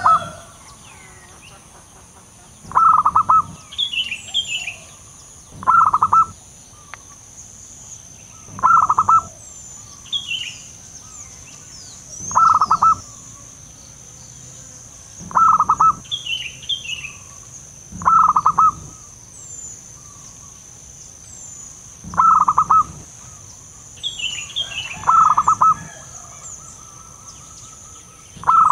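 Zebra dove (perkutut) calling: short bursts of rapid staccato coos, repeated about every three seconds, nine in all. Faint chirps of another small bird come between them over a steady high hiss.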